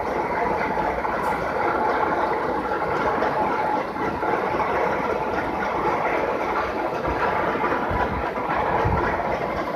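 Large heavy-duty roll-turning lathe running, a steady mechanical noise with a few faint low thumps near the end.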